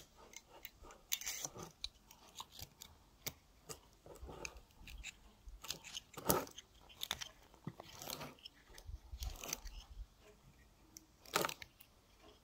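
Scattered small metallic clicks and scrapes as fingers work a vintage petrol lighter's insert, pushing the flint spring into the flint tube and turning the flint screw back in; the sharpest clicks come about six seconds in and near the end.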